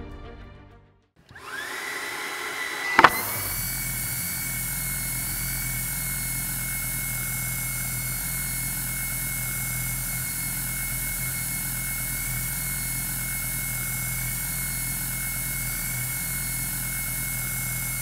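Xiaomi Mi G10 cordless handheld vacuum's brushless motor spinning up with a rising whine, a sharp click about three seconds in, then running steadily at full suction: a high, even whine over a rush of air.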